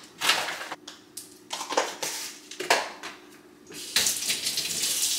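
Coconut water poured from a carton into a steel dog bowl of kibble, splashing onto the food: a few short pours, then a longer steady pour from about four seconds in.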